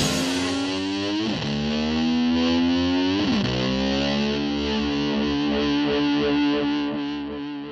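Distorted electric guitar playing the end of a rock song: held notes whose pitch dips sharply and swoops back up twice, then a last held note that starts to fade near the end.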